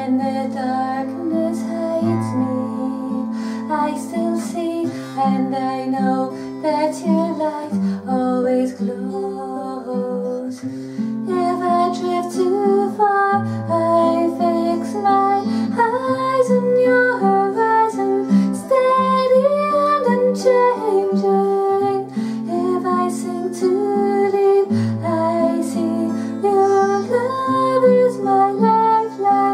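A woman singing while strumming an acoustic guitar. The guitar chords change every couple of seconds, and the voice is clearest from about ten seconds in.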